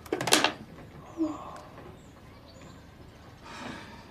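A quick run of small clicks and knocks as things are handled on a desk, then a single soft knock about a second in. Faint bird chirps sound in the background.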